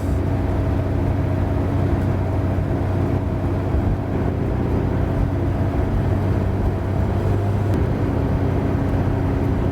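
Steady engine and road drone inside a moving car, a constant low hum with a few steady tones.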